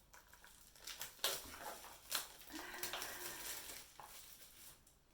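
Scissors cutting into a package and the packaging being handled: a few sharp snips and clicks with crinkling, the sharpest about a second in.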